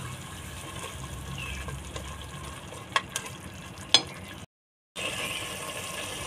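Ground tomato-onion masala paste sizzling as it fries in oil in a pressure cooker, with a spatula stirring it and a few sharp knocks of the utensil against the pot about three and four seconds in. The sound cuts out completely for half a second shortly after, then the sizzling carries on.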